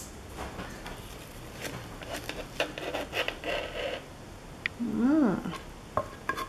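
Soft rubbing and scraping sounds for the first few seconds, then a short voiced sound that rises and falls in pitch about five seconds in.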